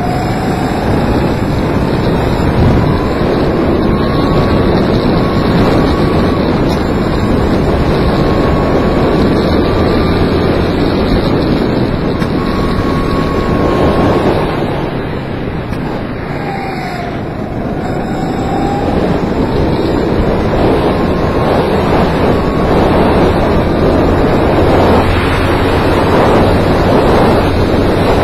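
Go-kart engine running hard on track, heard onboard through heavy wind noise on the microphone. Its pitch climbs slowly as the kart speeds up, and it eases off once about halfway through as the kart slows.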